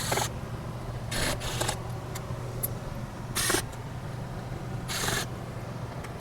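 Screws being backed out of a TV power supply board with a screwdriver, one short whirring scrape per screw, four or five times about a second or more apart. A steady low hum runs underneath.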